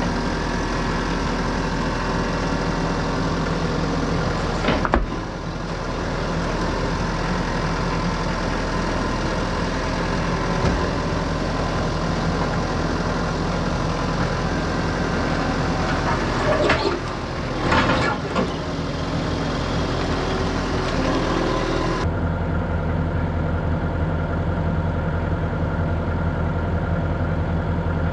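Portable sawmill's engine running steadily, with a few brief knocks. About two-thirds of the way through, the higher hiss drops away and a deeper, lower engine note remains.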